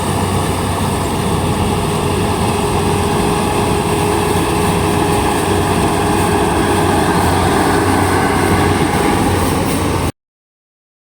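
Kubota combine harvester running steadily, a loud even machine drone with a steady low hum and a higher whine over it. The sound cuts off suddenly about ten seconds in.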